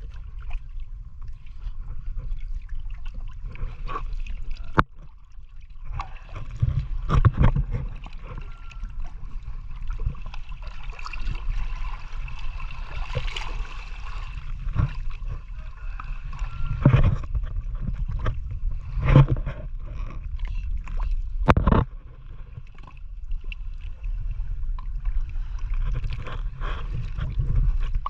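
Water sloshing and gurgling around a small boat over a steady low rumble, with a few sharp knocks scattered through.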